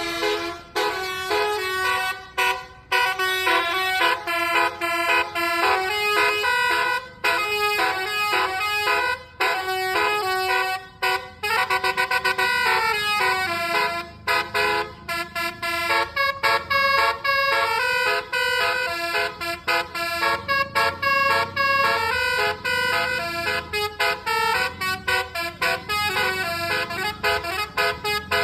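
Telolet basuri musical bus horn playing a fast tune: loud honked notes stepping up and down in pitch, with many short breaks between them.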